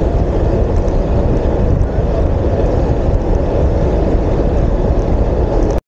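Wind buffeting the microphone of a handlebar-mounted camera on a bicycle moving at speed: a steady, heavy low rumble with hiss above it. The sound cuts off abruptly near the end.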